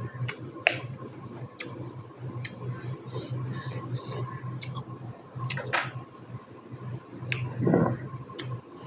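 Close-miked chewing of buffalo innards curry: irregular wet lip smacks and sharp mouth clicks, over a steady low electrical hum.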